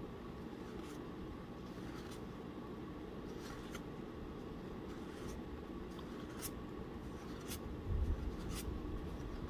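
Tarot cards being handled and flipped through one at a time, a faint light click of card about once a second over a low steady room hum, with a soft low bump near the end.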